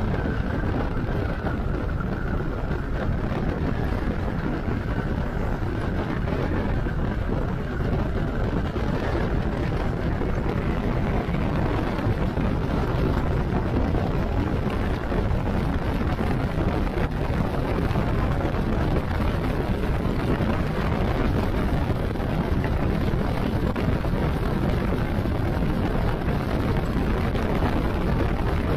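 Steady wind rush over the camera microphone of a Hero Xpulse 200 motorcycle riding at highway speed, with the bike's single-cylinder engine running beneath it as it picks up speed.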